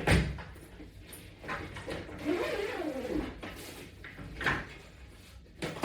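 Handling noise as resistance bands and gear are packed into a fabric shoulder bag: a knock at the start, then rustling with a few more bumps. A short wavering hum of a voice comes a little past the middle.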